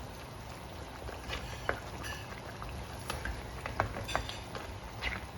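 Tomato-based pork caldereta stew simmering in a pan: a steady bubbling hiss with scattered sharp pops of bursting bubbles, a few louder ones in the middle.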